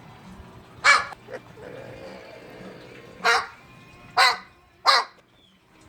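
Four short, loud barks: one about a second in, then three in quick succession near the end, with a small yelp after the first.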